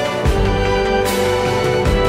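Closing theme music: held notes over a low bass line, with a bright hit about a second in.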